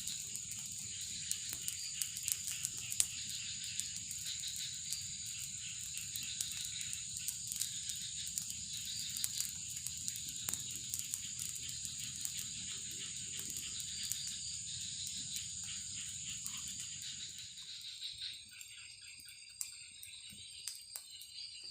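Insects, crickets by the sound of it, chirring in a steady high drone, with many faint scattered clicks; the drone fades out about three-quarters of the way through.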